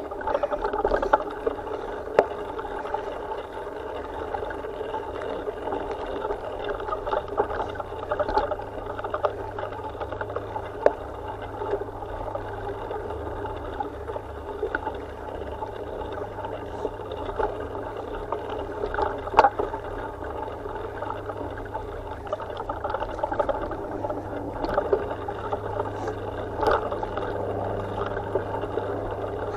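Bike ride on a dirt trail picked up by a bike-mounted camera: steady rumble and rattle of wheels rolling over the dirt, with wind noise and a few sharp knocks from bumps, the loudest about two-thirds of the way through.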